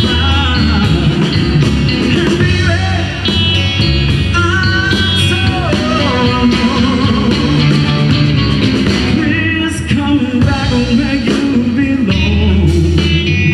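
Blues band playing live, led by a harmonica solo blown into the vocal microphone with cupped hands, its notes bending and wavering over the band's accompaniment.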